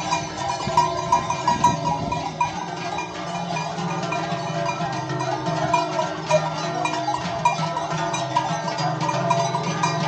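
Many cowbells ringing and clanging together without a break, a dense jangle of overlapping metallic strikes as the bell-wearing cattle walk past.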